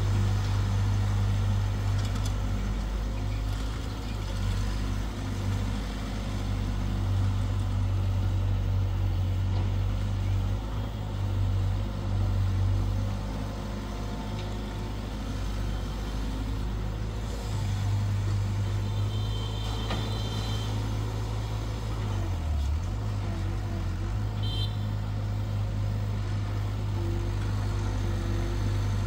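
An engine running with a steady low hum that barely changes throughout.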